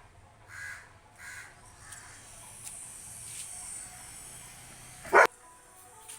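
Crows cawing a few short times, then one loud, short bark from a Labrador a little after five seconds in.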